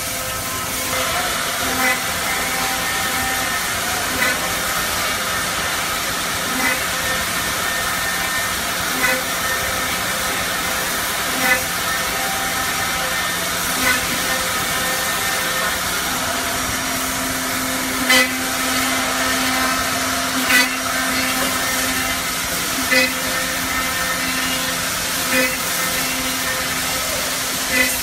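Woodmaster four-head CNC mortiser running, with a steady hiss and a hum of several steady tones from its spindles. Short sharp knocks come about every two and a half seconds, a few of them louder than the rest.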